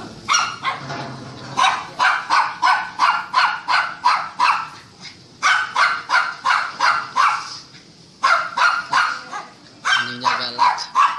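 Fierce dogs barking at a visitor: runs of sharp, quick barks, about three a second, broken by short pauses.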